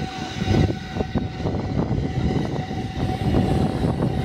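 Steam locomotive 30541, a Southern Railway Q class 0-6-0, rolling slowly into the platform with its train: a heavy rumble with irregular clanks from the wheels and running gear, and a steady high tone held over it.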